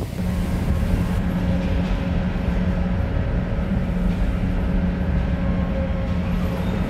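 Steady loud drone inside the enclosed car deck of a BC Ferries coastal-class ferry: the hum and whine of the hydraulic rudder actuators making near-constant course corrections in rough seas, over the ship's machinery.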